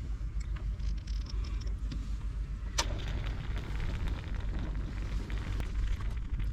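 Wood fire crackling with scattered sharp pops and one loud crack about three seconds in, over a low rumble of wind buffeting the microphone.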